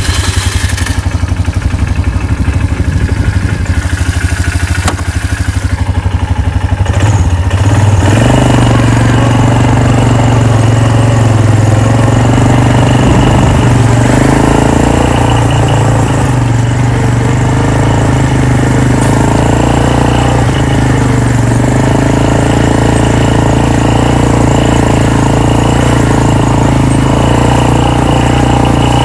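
Four-wheeler (ATV) engine running with a fast, even putter. About eight seconds in it goes up to a higher, steady pitch and holds there as the machine is driven.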